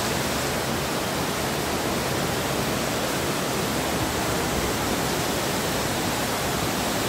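Heavy rain and rushing floodwater making a steady, unbroken hiss of water.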